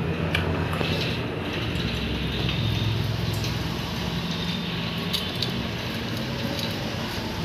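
Light metallic clicks and clinks of a motorcycle timing chain being fed by hand into the engine's cam chain tunnel, over a steady low mechanical hum.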